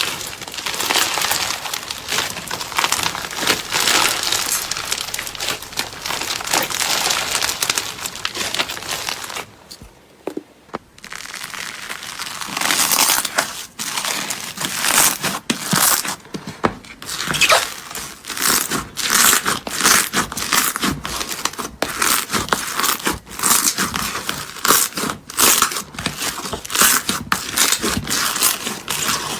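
Slime being squeezed and worked by hand, giving a dense crackling full of small sharp clicks. It eases off briefly about ten seconds in, then comes back as a faster run of distinct crisp clicks.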